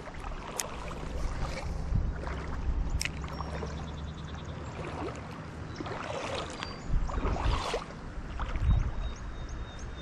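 Wind rumbling on the microphone over moving water, with a couple of sharp clicks and faint high chirps.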